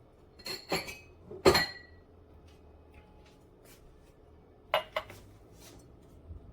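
Clinks and knocks of a portable blender's cup and lid being handled for pouring: a few hard taps, the loudest about a second and a half in and ringing briefly, then a quick pair of clicks near the end.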